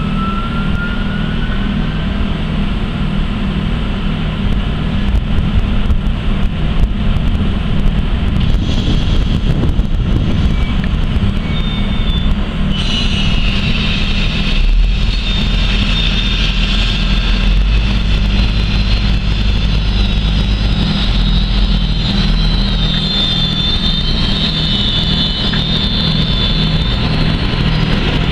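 Trenitalia E655 electric locomotive slowly hauling a train of open freight wagons: a steady low hum with a regular pulsing and a deeper rumble. A high metallic squeal sets in about halfway through and carries on.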